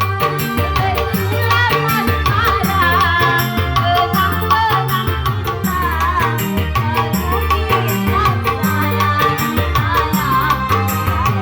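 Music with a singing voice: a wavering, ornamented melody over a steady drum and bass beat.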